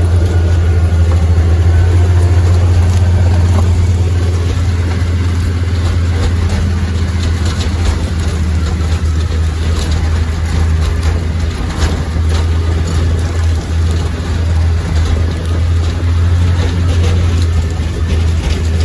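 Steady low drone of running farm machinery, an engine or motor, with scattered knocks and rattles over it.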